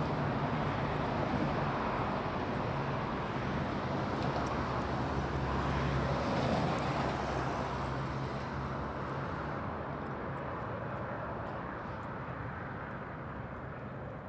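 A steady engine drone with a low hum, easing off slightly toward the end, with a few faint light clicks over it.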